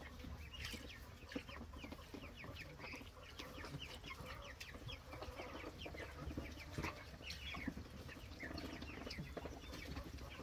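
A flock of young ducks peeping: many short, high, falling peeps that overlap, several a second.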